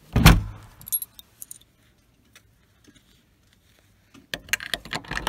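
A door pulled shut by its lever handle with a single thud just after the start, then, after a quiet pause, keys jangling and clicking as a key is worked in the door's lock near the end.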